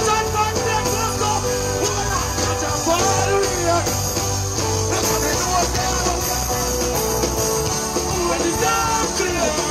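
Dancehall music played loud over a stage PA: a heavy, steady bass beat with a male vocal over it.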